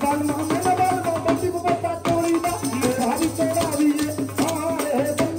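Punjabi folk music for Malwai giddha: fast, dense hand percussion with rattling strokes under a wavering melody line.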